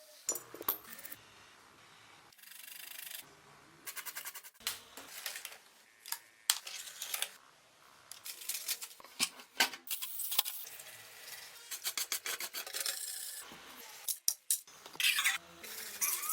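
Hand work on small metal parts: scraping and rubbing strokes with many sharp clicks and taps, in irregular bursts, and a dense run of clicks in the second half.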